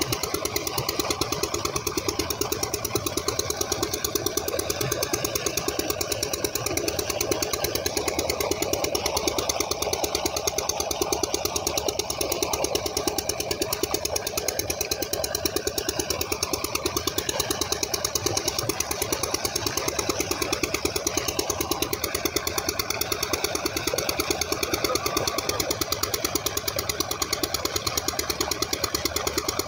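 Stationary engine driving a tubewell pump, running steadily with a rapid even beat, over the rush of pumped water pouring from the outlet pipe into the tank.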